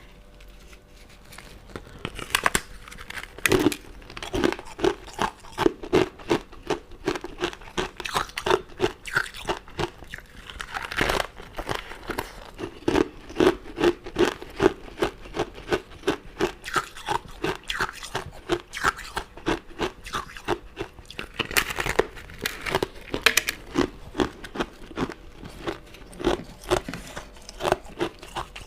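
Close-miked eating: crisp crunching and chewing of sugar-crusted crystal candy and jelly, a steady run of small crackles about two a second, with a few louder bites breaking through.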